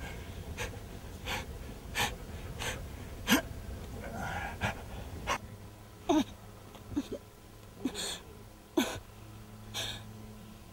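A man and a woman panting and gasping in rhythm during sex, roughly one breath every 0.7 s, easing a little toward the end. Several of the breaths are voiced into short moans.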